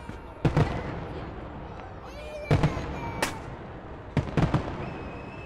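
Aerial firework shells bursting: sharp bangs in pairs and small clusters, about half a second in, around two and a half to three seconds in, and again just past four seconds. Each cluster is followed by a fading rumble.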